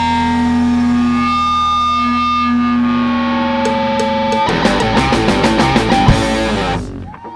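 Live rock band with distorted electric guitar holding a sustained chord. About four and a half seconds in, the band breaks into a rapid run of sharp accents that cuts off suddenly near the end, the song's final ending.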